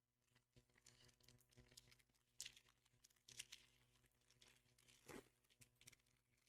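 Faint tearing and crinkling of a foil Pokémon TCG booster pack wrapper being opened, in short crackly bursts, the strongest about halfway through and near the end.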